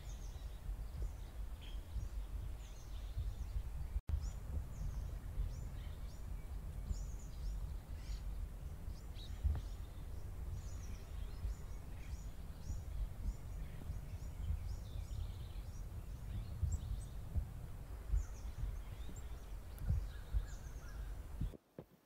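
Black-capped chickadees chirping, with many short high calls one after another over a steady low rumble on the microphone. The sound cuts off suddenly near the end.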